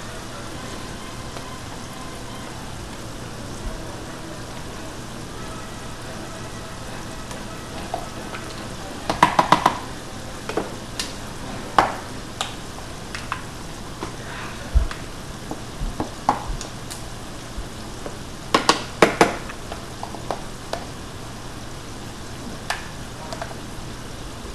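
Crinkle-cut french fries frying in hot oil, a steady sizzle throughout. Over it, a scattering of sharp clinks and knocks from a spoon and the glass blender jar, loudest in two clusters about nine and nineteen seconds in.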